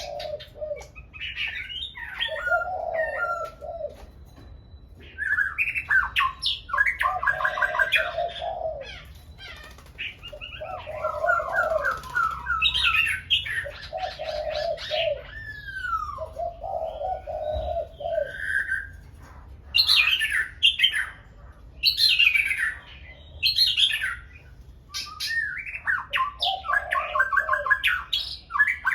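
Birds singing loudly in short, quick phrases with pauses between them, with lower cooing notes mixed in.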